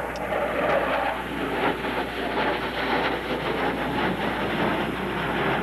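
Jet roar of an F-4 Phantom's twin J79 turbojets as the fighter passes low overhead, a steady, rough, crackling rumble.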